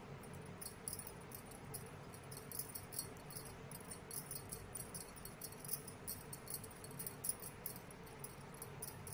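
Faint, irregular light clicks of a knitting needle as yarn stitches are worked onto it, several a second, over a low steady hum.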